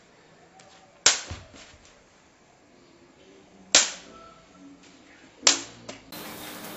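Rattan chinlone ball kicked three times in the wai gyi kick: three sharp cracks a couple of seconds apart, each with a brief ring after it.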